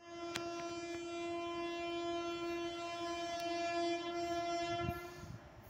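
Horn of the approaching Ananya Express locomotive sounding one steady blast of about five seconds, then cutting off.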